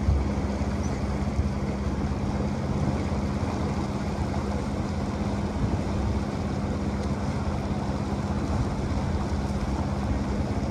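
A boat's motor running steadily, a constant low hum and rumble, under a wash of water and wind noise.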